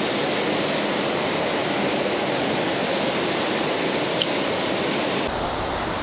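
Steady rushing of water pouring over a 30-foot waterfall, an even hiss. About five seconds in the sound changes abruptly and turns deeper.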